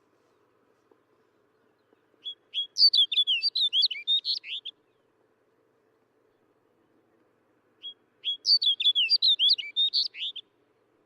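Snow bunting singing two short songs of quick, warbling notes, each lasting about two and a half seconds, a few seconds apart.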